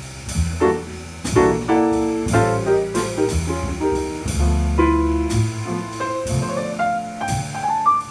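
Live small-group jazz: a Fazioli grand piano plays melodic lines and chords over walking double bass and a drum kit keeping time on cymbals. A run of piano notes climbs upward near the end.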